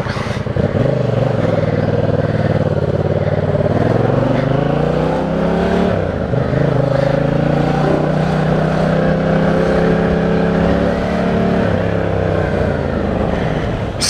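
Yamaha MT-07's parallel-twin engine under way, pulling up in pitch about a second in and again around four to five seconds in, then holding steady revs, over a steady rush of riding noise.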